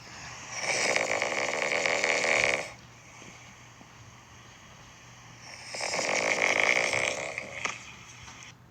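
A bear snoring: two long snores of about two seconds each, the second starting about five seconds after the first.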